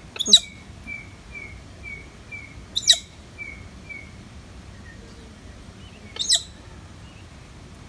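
A pink bird giving three short, loud calls about three seconds apart. Faint quick chirps repeat about twice a second between the first two calls.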